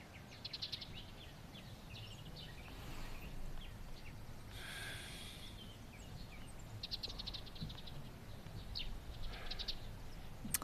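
Small birds chirping, with several quick trills, over a faint low background hum. There is a brief soft hiss about halfway through.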